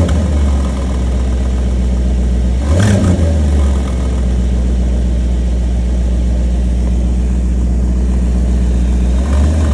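2014 Maserati GranTurismo's 4.7-litre V8 idling steadily, with short throttle blips just at the start, about three seconds in, and again near the end. The car has an unexplained strange noise that the owner is trying to diagnose.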